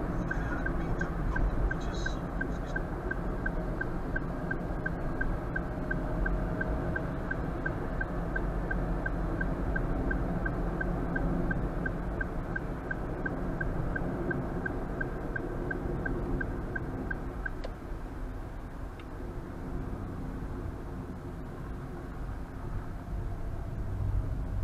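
Car cabin noise: a steady low road and engine rumble, with a turn-signal indicator ticking about twice a second until it stops about 17 seconds in.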